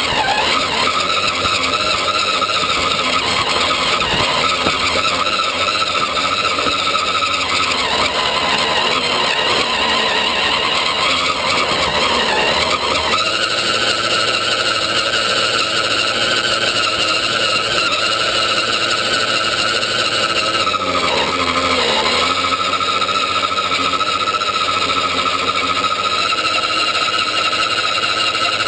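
Scale RC Land Rover Defender 90 crawler's electric motor and geared drivetrain whining steadily as it drives, heard from inside the model's body. The whine dips in pitch a few times as the truck slows, then climbs back.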